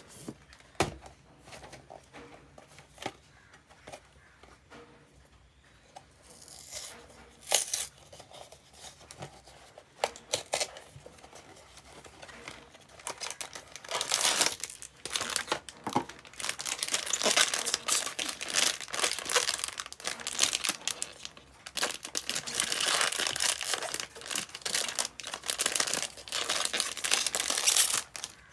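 A cardboard blind box being handled and opened, with scattered taps and scrapes, then the foil blind-bag inside crinkling and tearing open. The crinkling turns loud and almost continuous from about halfway through.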